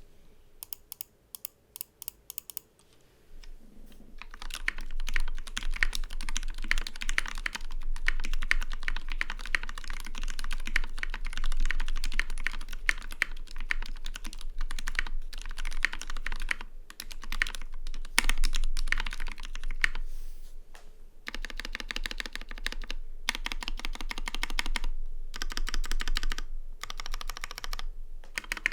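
Mechanical keyboard being typed on. It has lubed linear Gateron Black Ink switches on a 1.5 mm brass plate in an acrylic case, with PBT Cherry-profile keycaps. A few separate keystrokes come first, then fast continuous typing from about four seconds in, broken by a few short pauses.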